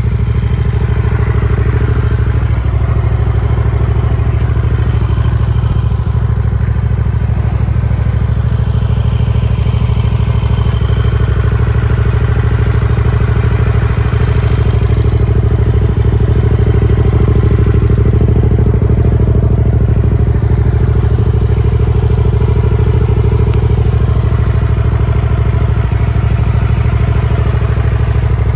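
Hyosung GT250R's air-cooled four-stroke V-twin engine idling steadily, its engine in good running order.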